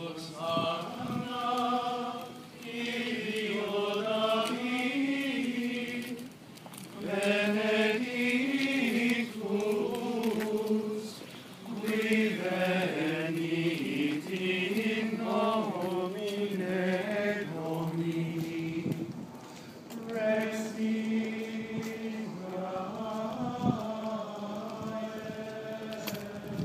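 A group of men singing a liturgical chant together, in long held phrases with short breaks for breath between them.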